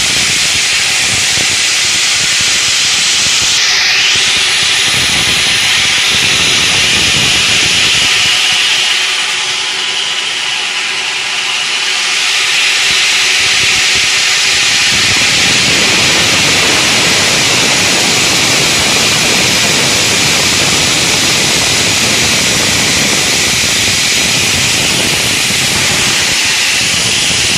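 Multi-blade granite cutting machine running, its gang of saw blades cutting stone slabs under water: a loud steady hiss. The deeper part of the noise falls away for a few seconds about nine seconds in.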